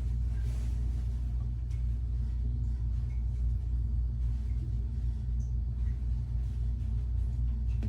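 Steady low hum with no change in pitch or level, the constant background drone of the room.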